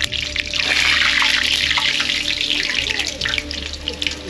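Fry bread dough frying in hot oil: a loud sizzle with crackling pops, swelling about half a second in and easing near the end, over a steady low hum.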